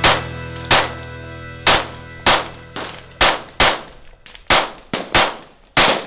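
About a dozen gunshots at a shooting range, fired at uneven intervals, each a sharp crack with a short ringing tail. Background music fades out over the first half.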